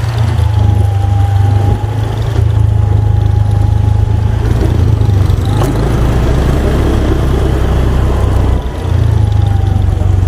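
Motorcycle engine running while riding, its low note dropping for a few seconds past the middle, then picking up again near the end. A single sharp click comes about five and a half seconds in.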